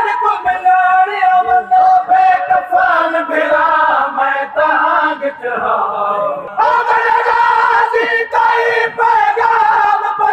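A group of men chanting a noha, a Shia lament, in unison behind a lead reciter, with sharp regular beats keeping time. The voices drop away briefly about six seconds in, then come back in.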